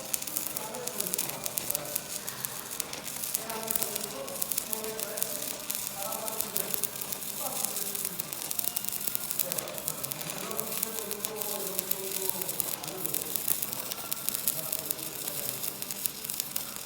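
Stick-welding arc crackling and sizzling steadily as a 3.2 mm cast-iron electrode burns on a cast-iron gearbox housing at about 90 A.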